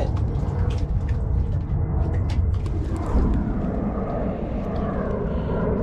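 Wind buffeting an action camera's microphone, a loud, steady low rumble, with a few light knocks from the camera being handled and turned around.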